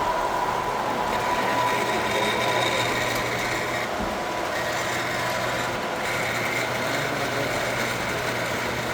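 Steady whir of small electric model-train motors running on the layout, over a low steady hum.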